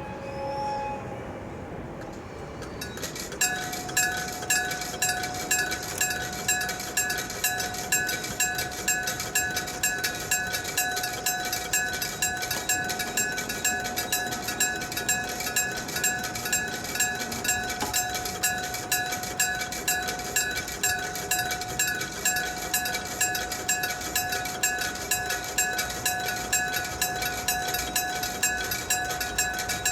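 Japanese level-crossing warning bell starting up about three seconds in and then dinging steadily about twice a second, the signal that a train is approaching the crossing.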